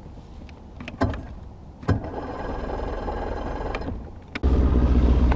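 Bass boat outboard motor being started with the key: a couple of clicks, about two seconds of electric starter cranking, then the engine catches a little after four seconds in and runs steadily.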